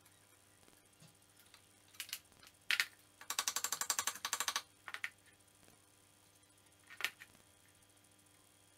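Ratchet wrench clicking in a quick even run, about ten clicks a second for just over a second, as a bolt on the scooter's front fork is turned. A few single metal clicks and knocks come before and after it.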